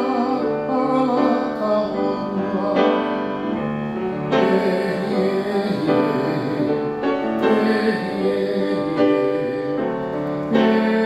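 A Hawaiian song performed live: a man singing to piano accompaniment, with a new piano chord struck every second or two.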